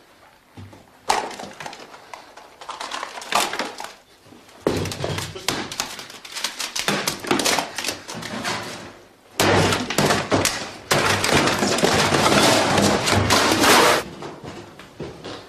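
Repeated crashing and clattering of objects being smashed and knocked about, starting suddenly about a second in, with a long continuous stretch of crashing near the end.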